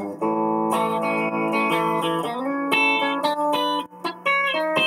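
Kramer electric guitar through an amplifier playing a country lick in the key of A. Held notes give way to a sliding note about two seconds in, followed by a quick run of short picked notes.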